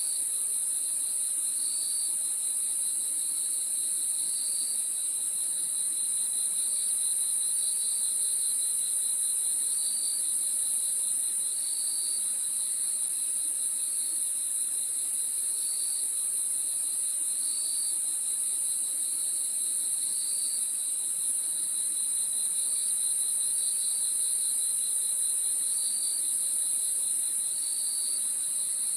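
Crickets chirping in a continuous night chorus: a steady high-pitched trilling, with a lower pulsing trill and short chirps repeating every second or two.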